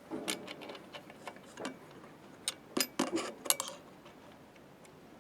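Light metallic clicks and taps as a magnetic screwdriver and a small steel spring washer knock against the spindle shaft and housing inside a slit lamp base. A cluster of sharper clinks comes about halfway through, then it goes quieter.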